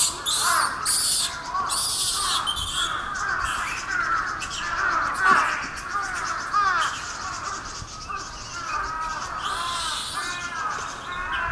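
Japanese macaques giving many short, rising-and-falling coo calls that overlap one another, with bursts of rushing hiss at the start and again about ten seconds in.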